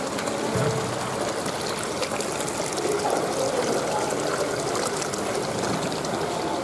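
Water pouring into a live-fish holding tank and churning its surface, with air bubbles rising: a steady splashing and gurgling.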